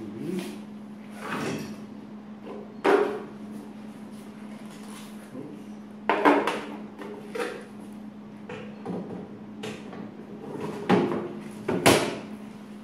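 Knocks and clatters of a plastic-and-metal sample holder being handled at a Cary 5000 spectrophotometer's sample compartment, about five in all, the loudest near the end as the compartment lid is closed. A steady low hum runs underneath.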